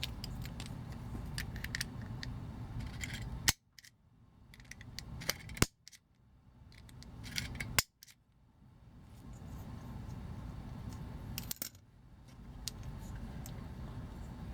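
Small metallic clicks and taps of a pin punch working against the pins of a die-cast toy car, with a few sharper clicks in between.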